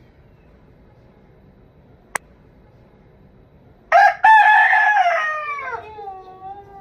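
A rooster crowing once, about four seconds in: a loud cock-a-doodle-doo whose long last note falls in pitch and fades away. A single sharp click comes a couple of seconds before it.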